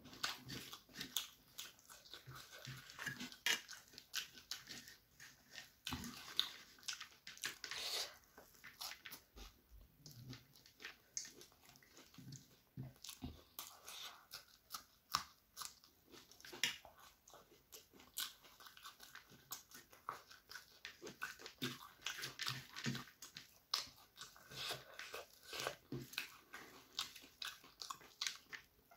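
Chewing and crunching of a mouthful of puffed rice (muri) mixed with chicken curry, many short crisp crunches and wet mouth sounds.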